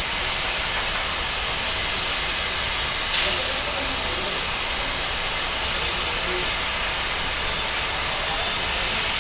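Steady, loud whooshing hiss of jet-aircraft turbine noise on an airport apron. A short, louder burst of hiss comes about three seconds in and a brief one near the end.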